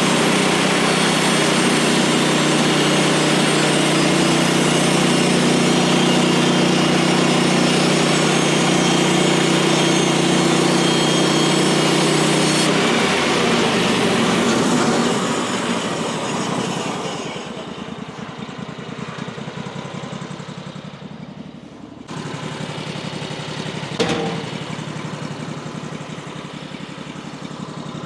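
Woodland Mills HM136MAX bandsaw sawmill's engine running steadily at high speed with a hiss of the blade, then throttling down about halfway through and settling to a lower, steady idle. A single sharp knock comes near the end.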